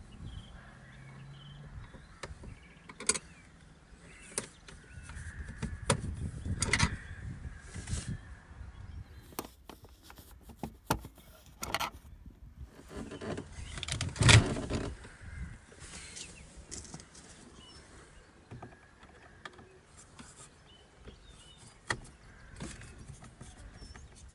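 Scattered plastic clicks, knocks and rustles as a 1986 Peugeot 305's automatic gear selector and its plastic console trim are handled and worked loose, with one louder knock a little after halfway.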